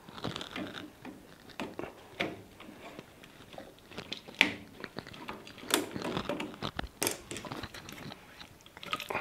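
Hotpoint washing machine drain pump and its rubber hoses being worked loose by hand and with pliers: irregular plastic clicks, creaks and crunching, with a sharper click about four seconds in.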